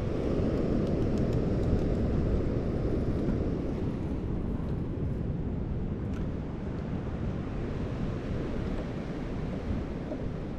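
Wind rumbling on the microphone over the steady wash of ocean surf below the pier, easing a little toward the end.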